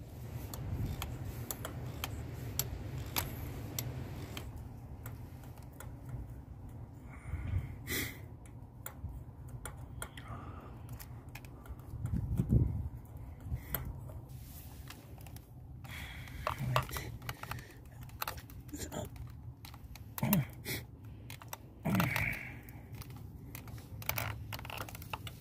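Socket ratchet clicking in short, irregular runs, with light metal taps and a few louder knocks, as a spark plug is loosened and backed out by hand, over a low steady hum.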